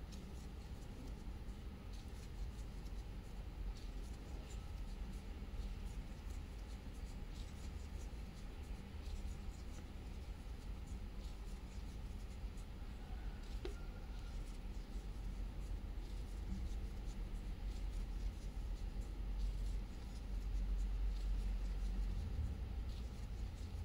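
Faint scratching and light ticks of a 2.5 mm metal crochet hook pulling milk yarn through single crochet stitches, over a low steady hum.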